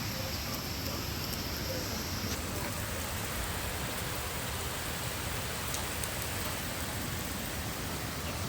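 Heavy rain falling steadily, a constant even hiss of downpour on surfaces.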